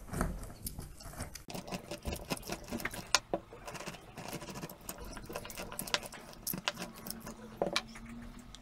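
A whole lemon being squeezed for its juice: irregular small clicks, squelches and scraping sounds.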